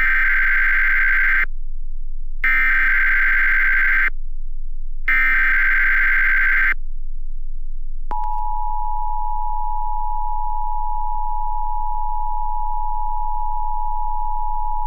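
Emergency Alert System SAME header for a Required Monthly Test: three identical bursts of harsh digital data screech, each about a second and a half, with short gaps between. About eight seconds in, the steady two-tone EAS attention signal (853 and 960 Hz) begins and holds.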